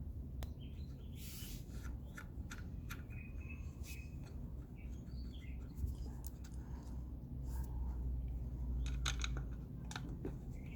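Scattered light metallic clicks and scrapes from screws being handled and started into a motorcycle engine cover, with a few short high chirps, over a steady low hum.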